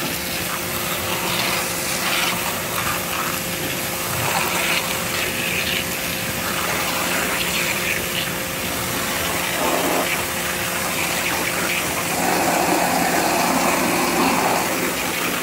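Pressure washer running: the water jet hissing against vinyl siding over a steady hum from the machine, a little louder near the end.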